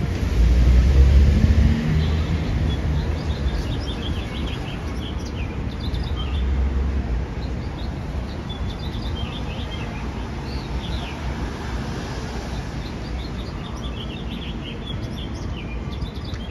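Street traffic with birds chirping throughout. A low vehicle rumble is loudest between about half a second and two seconds in, and swells again around six seconds.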